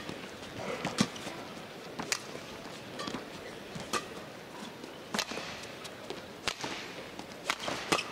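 Badminton rally: sharp cracks of rackets striking the shuttlecock, one roughly every second or so at uneven spacing, with players' footsteps on the court between hits over a steady arena hush.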